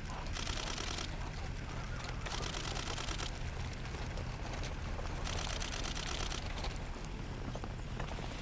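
A steady low hum runs under three short bursts of rapid, high-pitched clicking, each about a second long.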